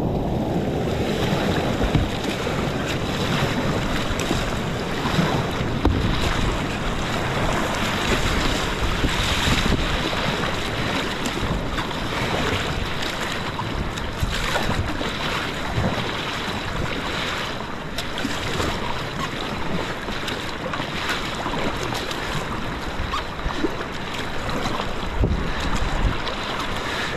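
Rushing whitewater and splashing around a kayak running a creek's rapids, with wind buffeting the microphone.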